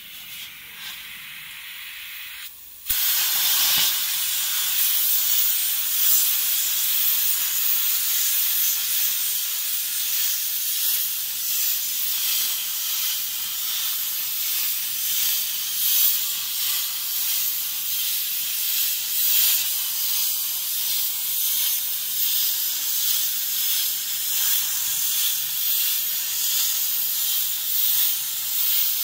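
CNC plasma cutting torch cutting metal plate. After a quieter hiss for the first three seconds, the arc comes on suddenly and a loud, steady high hiss runs on as the torch cuts.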